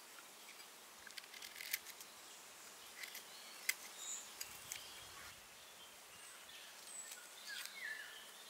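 Quiet outdoor ambience with faint bird chirps and a handful of light, sharp clicks or taps in the first half.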